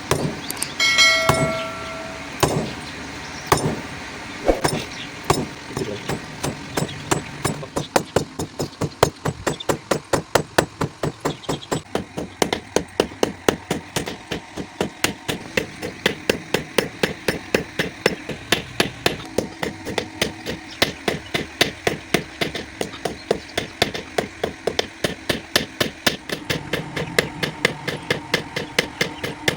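Hammer blows on a hex nut being forged on an anvil: a few spaced strikes at first, one ringing out clearly about a second in, then a steady run of blows about three a second.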